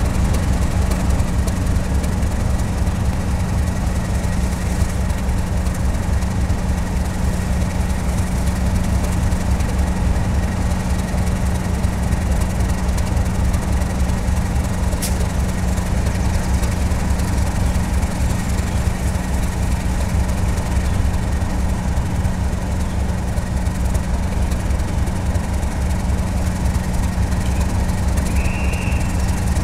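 Two British Rail Class 37 diesel locomotives, each with an English Electric V12 engine, idling steadily together while standing at the platform. A single click comes about halfway through, and a short high tone near the end.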